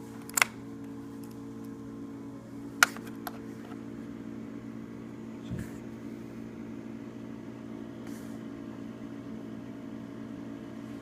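A few sharp clicks of a small Phillips screwdriver and small screws being worked out of a laptop's plastic underside, two of them loud in the first three seconds. They sound over a steady, even background hum.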